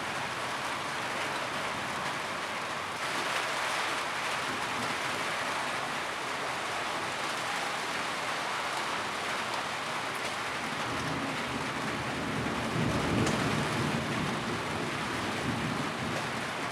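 Steady rain falling on a roof, a continuous even patter that grows a little louder about three seconds in. About twelve seconds in, a low rumble of thunder swells and fades.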